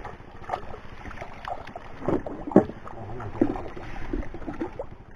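Irregular knocks and thumps with water noise in a small fishing boat while a giant trevally is being landed.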